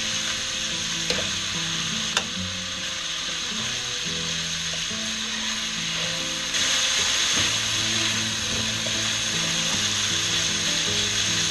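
Chicken pieces sizzling as they brown in a frying pan, with a couple of sharp clicks of a utensil against the pan in the first few seconds; the sizzle gets louder about six and a half seconds in.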